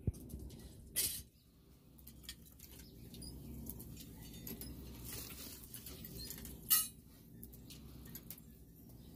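A few sharp metal clinks, three standing out, as tongs and iron stock are shifted in a forge fire, over a steady low hum.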